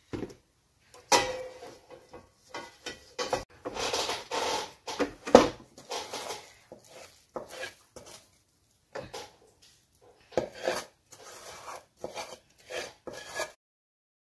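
Steel cookware clinking and scraping as a sticky sweet mixture is scooped out of one steel pan into a ghee-greased steel pan and pressed down by hand. Irregular knocks and scrapes, the loudest a sharp knock about five seconds in; the sound cuts off suddenly near the end.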